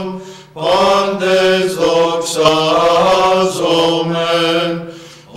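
Byzantine chant in Greek: voices singing a slow, melismatic hymn to the Virgin Mary over a steady held drone note (the ison). Short pauses between phrases come about half a second in and again near the end.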